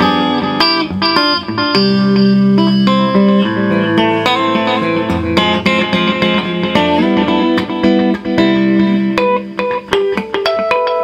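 Gretsch Chet Atkins Country Gentleman electric guitar fingerpicked Travis-style: a steady alternating bass under a melody line, played through an amp with a delay set for echo repeats.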